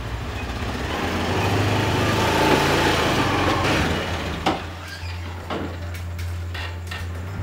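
Small motor scooter engine running as it rides up close, getting louder and then easing back to a steady low idle. Several sharp clicks and knocks come in the second half.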